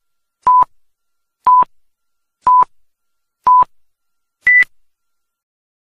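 Electronic countdown beeps: four short identical tones about a second apart, then a fifth tone an octave higher.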